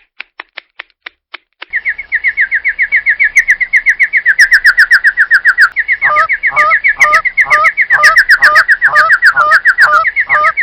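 Bird-chirp sound effect: a few sparse clicks, then a fast, even run of short, high chirps. About six seconds in, a second, lower chirping joins it, so two birds cheep together.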